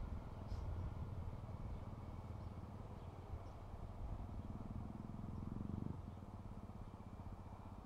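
Distant Class 197 diesel multiple unit running along the line with a low, steady engine rumble. About four and a half seconds in its engine note rises, then cuts off suddenly about a second and a half later.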